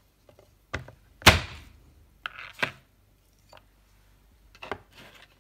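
A cleaver knocking on a wooden cutting board while garlic is being prepared: several separate thuds, the loudest a little over a second in, a pair near the middle and one more near the end.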